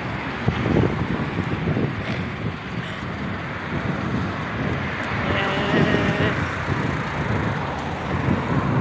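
Wind buffeting the microphone along a road, with a vehicle going by. About five seconds in, a short steady tone sounds for about a second.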